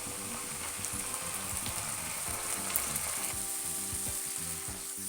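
Sliced onions and freshly added ginger-garlic paste sizzling steadily in hot oil in a kadai.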